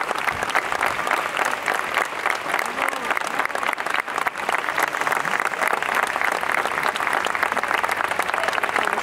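Audience applauding: dense, steady hand-clapping from a crowd, with a few faint voices mixed in.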